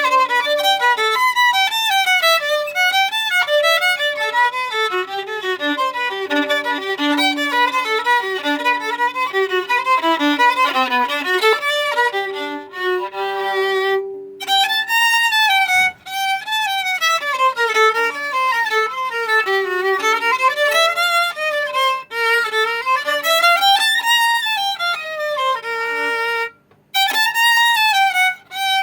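Solo violin practice: bowed melodic lines and fast runs up and down. The playing stops briefly a few times and starts again, with the clearest break shortly before the end.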